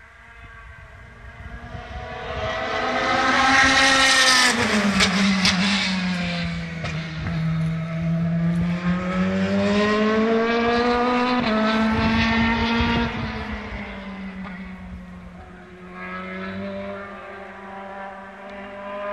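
AFRIX Motorsport single-seater race car's engine approaching and passing close about four seconds in, its pitch falling as it goes by. It then pulls away with the pitch slowly climbing, a sudden step in pitch about eleven seconds in, and fades before growing louder again near the end.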